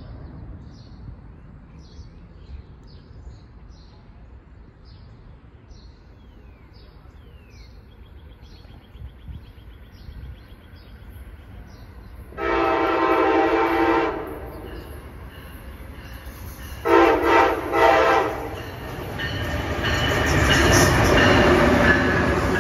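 Amtrak ACS-64 electric locomotive's horn sounding one long blast about halfway through, then three short blasts a few seconds later. The rumble of the approaching train then builds up as it runs past the platform.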